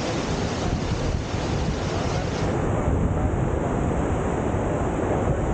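Steady rushing whitewater of a river surf wave, with wind buffeting the microphone.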